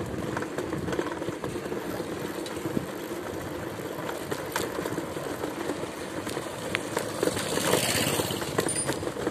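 Steady rumble and rattle of riding along a rough rural road, with scattered small clicks and a short burst of hiss about eight seconds in.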